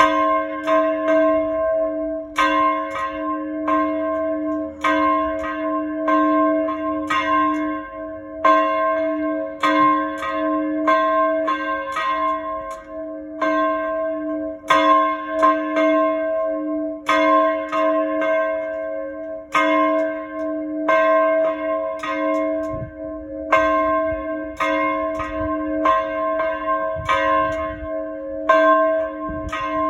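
A single church tower bell being rung, struck over and over in quick succession, with its deep tone ringing on between strokes.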